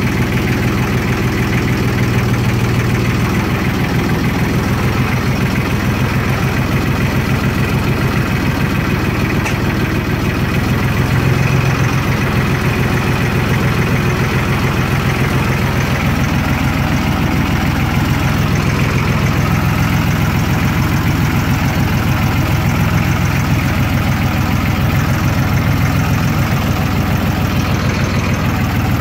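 Farm tractor's engine running steadily at idle, heard from close by on the tractor itself.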